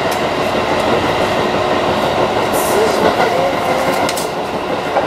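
Seibu 3000 series electric train running along the track, heard from inside the front car: a steady rolling rumble with a few sharper clicks and hisses from the wheels over the rails.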